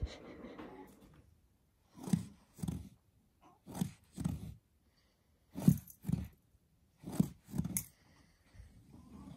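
Fabric cat tunnel rustling as a cat moves inside it: four pairs of short scrapes about half a second apart, the pairs coming roughly every second and a half.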